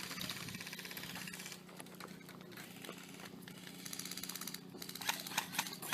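Airsoft guns firing in rapid full-auto bursts, a fast even clatter of shots, then a few separate sharp shots near the end.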